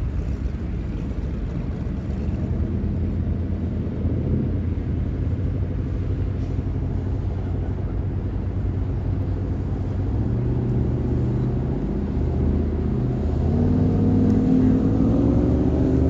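Low, steady rumble of a passing tanker's diesel engine. About thirteen seconds in, an engine note rises in pitch, then holds, louder.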